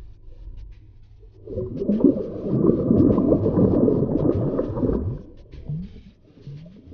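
A snakehead fish thrashing and splashing in shallow, grassy water: a loud spell of splashing about a second and a half in that lasts some three and a half seconds, then a few smaller splashes.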